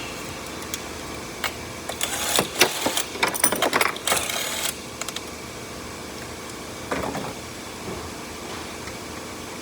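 Hand tools clicking and rattling in quick runs, densest from about two to nearly five seconds in, over a steady background hum, with an isolated knock near seven seconds.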